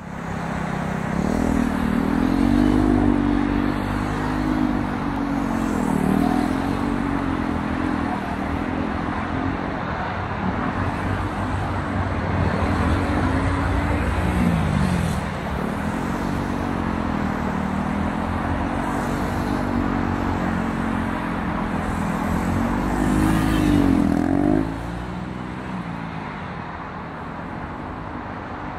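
KTM 390 Duke's single-cylinder engine revving up and down over and over as the motorcycle accelerates and brakes through a gymkhana cone course. The engine sound drops off suddenly near the end.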